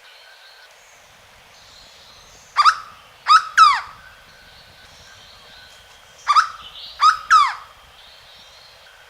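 Hooded berryeater (corocoxó) calling: two phrases of three loud notes each, about three and a half seconds apart, the last two notes of each phrase close together. Other birds or insects are faint in the background.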